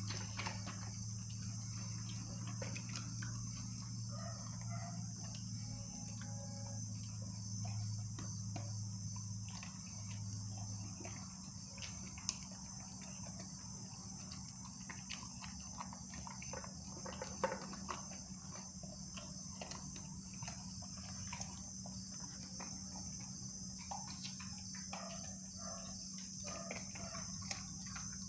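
A pit bull puppy chewing raw food from a stainless-steel bowl: scattered wet clicks, with two sharper clinks against the bowl. Under it runs steady cricket chirping, and a low hum stops about eleven seconds in.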